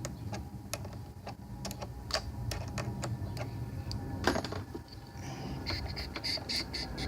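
Metallic clicks and taps of a wrench working loose the clamp on a car battery's negative terminal. Irregular single clicks give way to a quicker run of ticks near the end.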